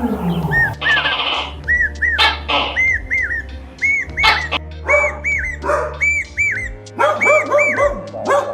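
Background music with short, high, arching animal calls repeating over it, about two or three a second.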